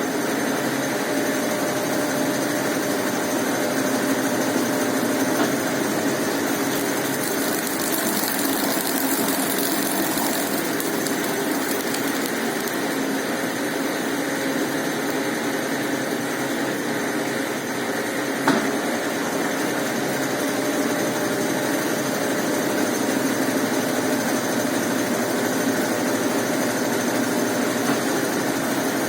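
Brastemp Ative 11 kg top-loading washing machine running with a steady mechanical hum. A single sharp click comes about two-thirds of the way through.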